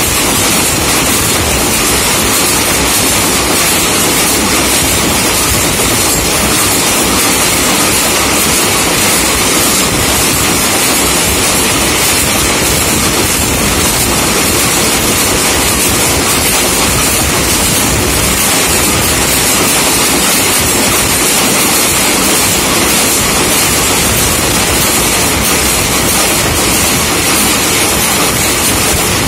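Belt-driven screw-making machine running, a loud, steady mechanical clatter that does not let up.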